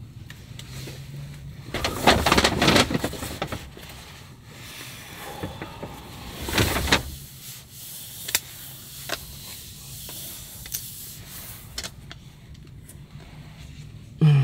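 Apple MacBook Pro box and its packaging being opened by hand. There are two bursts of paper and cardboard rustling and scraping, about two and seven seconds in, with light clicks and taps between them.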